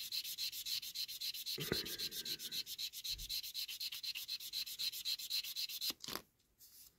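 Rough side of a buffer stick rubbed in rapid, even back-and-forth strokes across a clear plastic window unit, abrading scratches out of the plastic. The rubbing stops about six seconds in, followed by a brief click.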